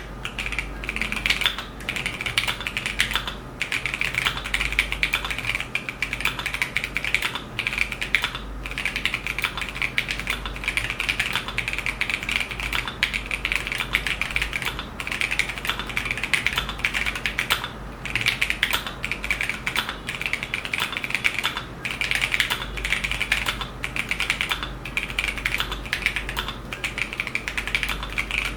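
Continuous typing on a Keychron Q1 Pro aluminium mechanical keyboard fitted with Kailh Zhidong switches, in stock form without the sound-dampening foam pack: a dense run of keystroke clacks with a few short pauses. The large, stabilised keys add some rattle.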